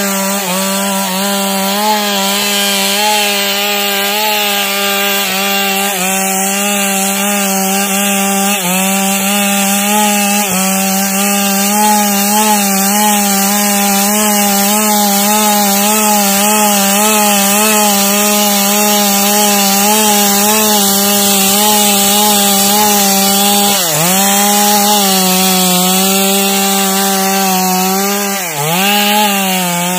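Stihl two-stroke chainsaw running near full throttle while ripping a log lengthwise, its engine note wavering slightly under load. The revs dip sharply and recover a few times, most clearly twice near the end.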